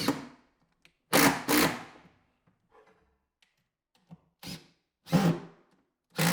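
Screws being driven through a fridge cabinet into a wooden end panel: a string of about six short, sharp bursts, the loudest pair just over a second in.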